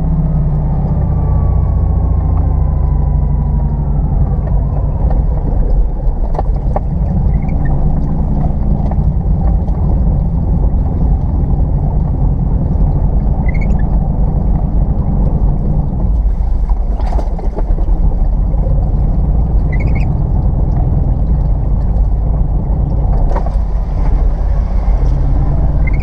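First-generation Subaru Forester's flat-four engine running rough on only two of its four cylinders after a coil-pack failure, a loud, steady, labouring rumble with almost no power, the car standing in river water. The windscreen wipers squeak faintly about every six seconds.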